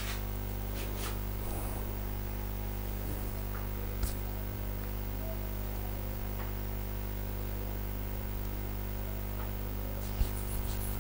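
Steady electrical mains hum with a low buzz of several even tones, with a faint click about four seconds in and another near the end.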